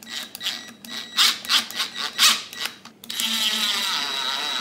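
Cordless impact driver driving a screw into wood: short stop-start bursts, then a steady run of about two seconds starting around three seconds in.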